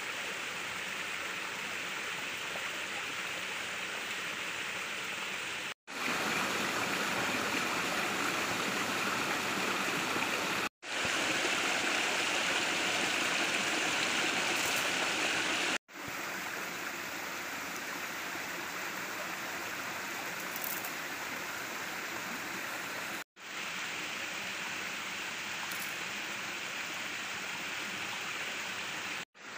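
Forest stream flowing, a steady rush of water. It is broken by four brief dropouts, with each section at its own steady loudness and the loudest stretch in the middle.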